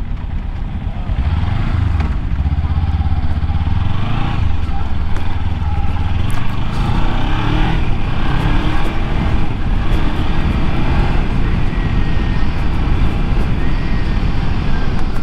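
Kawasaki Ninja 300's parallel-twin engine running as the bike is ridden at low speed, its note rising twice in the first five seconds as the throttle is opened, then running steadily.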